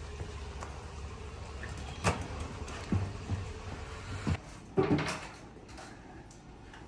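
A hotel room door being unlocked with a key card and opened. A few sharp clicks of the lock and handle come first, then a louder clunk about five seconds in as the wooden door swings open.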